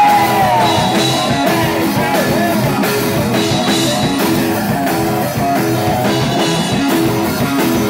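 Rock band playing live and loud: electric guitar and bass over a drum kit keeping a steady beat.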